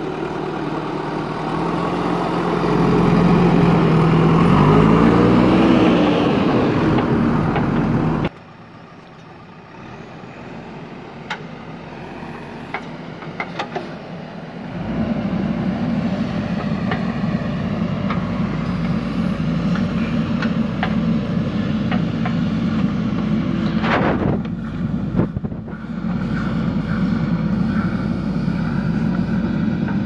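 JCB backhoe loader's diesel engine working, revving up and down with its pitch rising and falling for the first eight seconds. The sound drops away suddenly, a quieter stretch with a few clicks follows, and from about halfway through the engine runs steadily while the backhoe arm digs.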